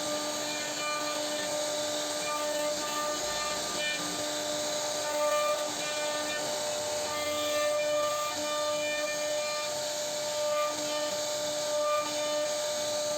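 CNC router spindle running at high speed while its bit cuts wood: a steady high whine over a continuous hiss, with small swells and dips in level as the cut changes.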